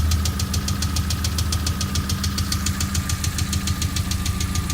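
VAZ-21124 16-valve engine of a VAZ 2112 idling hot, with a fast, even metallic ticking knock about ten times a second over the running, and a steady thin whine under it. The knock remains after new hydraulic lifters and fresh oil, and is absent when the engine is cold.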